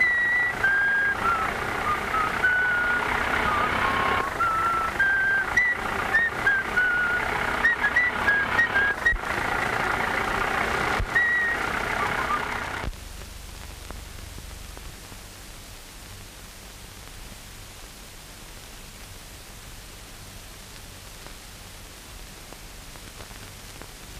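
A man whistling a tune over the steady running of an old delivery truck's engine. About halfway through, the whistling and the engine noise cut off, leaving a much quieter steady hum.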